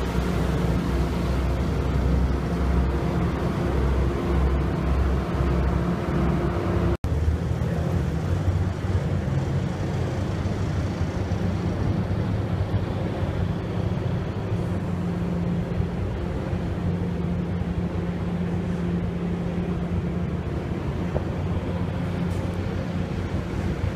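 Ship's engines running with a steady low drone over rushing, churning water from a manoeuvring car ferry. The sound cuts out for an instant about seven seconds in.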